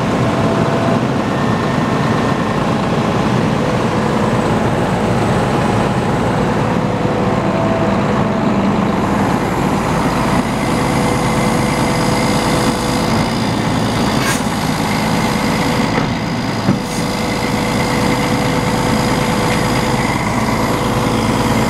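Snow plow truck running steadily, a loud even mechanical noise with a few steady humming tones, broken by two sharp knocks in the last third.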